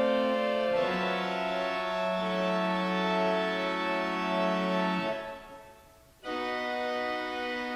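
Organ playing slow, held chords. About five seconds in, the chord is released and fades nearly to silence, and a new chord comes in a second later.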